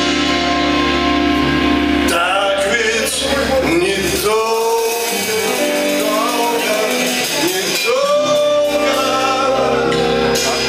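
Live rock band playing: a voice sings a slow, gliding melody over sustained chords.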